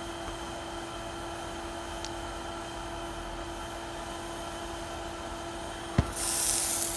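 Steady hiss with a low hum under it; about six seconds in, a sharp click and then a loud burst of hissing.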